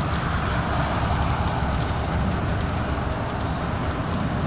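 Steady engine and road noise heard inside a bus travelling at motorway speed, a low rumble with a hiss over it.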